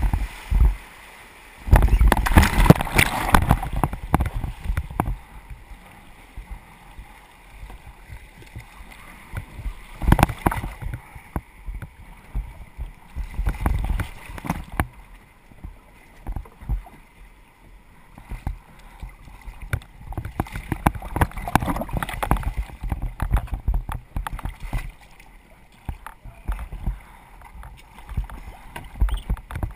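Kayak running a whitewater rapid: rushing water and splashing against the hull, loudest for a couple of seconds near the start, then intermittent paddle splashes and knocks on the plastic hull as the water calms.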